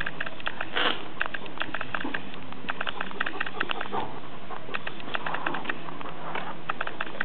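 Maremma sheepdog puppies moving about on paving stones: many small clicks of claws on the stone, several a second, with a few breathy pants.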